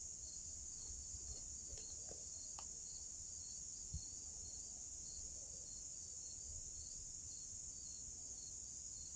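Insects chirping in a steady chorus: a continuous high trill with a regular, evenly repeating chirp just below it. A single soft low thump about four seconds in.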